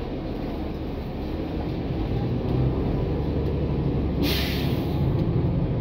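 NABI 416 transit bus running with a steady low rumble, heard from inside the passenger cabin. A short hiss of released compressed air from the bus's air system comes a little over four seconds in.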